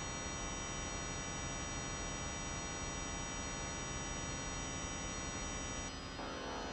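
Sustained electronic drone: a dense stack of steady synthesized tones held without a break, its lower part shifting to a different, wavering chord about six seconds in.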